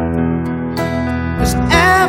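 Slow, gentle song with strummed acoustic guitar, its sustained chords ringing; a melody line comes in near the end.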